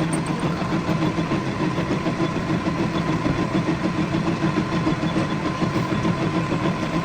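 A workshop lathe running steadily: an even machine hum with a quick, regular pulse.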